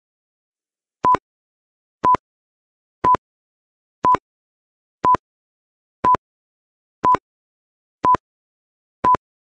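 Quiz countdown timer beeping: a short electronic beep of a single pitch once a second, nine times, starting about a second in, with nothing between the beeps.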